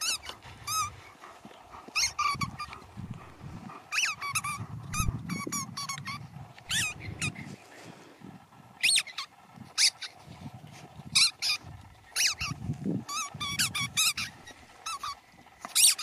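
Rubber squeaky ball squeezed over and over: a string of short, high squeaks with a wavering pitch, coming in irregular bursts and some quick runs.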